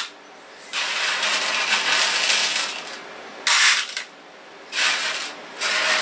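A heap of small loose metal screws being raked and sifted by hand on a countertop, a clinking metallic rattle in three bursts with short pauses between, the loudest a brief one a little past the middle.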